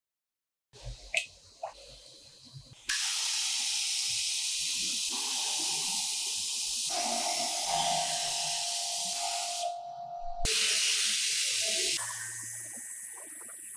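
Gravity-feed paint spray gun hissing steadily as it sprays paint, starting about three seconds in after a couple of small clicks. The hiss breaks off briefly near ten seconds and is fainter over the last two seconds.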